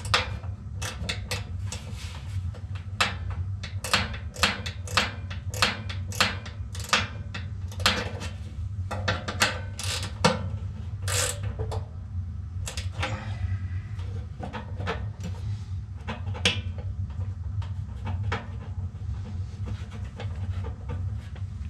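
Irregular metallic clicks and clanks of a wrench and hands working on a loose, stripped-out blower motor mount bracket, thinning out near the end, over a steady low hum.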